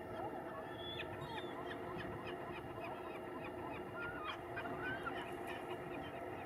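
A flock of gulls calling: many short, overlapping cries, several a second, over a steady low rumble.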